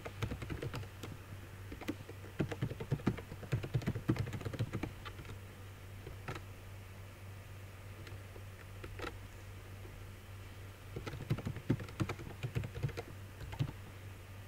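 Typing on a computer keyboard: a quick run of keystrokes over the first five seconds, a few lone clicks, then a second run of typing about eleven seconds in. A steady low hum sits underneath.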